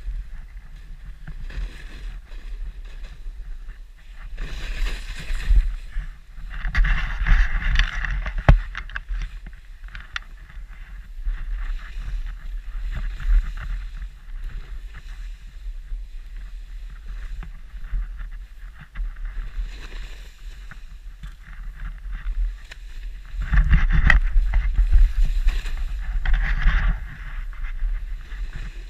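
Deep powder snow hissing and swishing under a rider's turns through the trees, swelling in surges about five seconds in, again around seven to eight seconds, and from about twenty-four to twenty-seven seconds. Under it runs a steady low rumble of wind on the microphone.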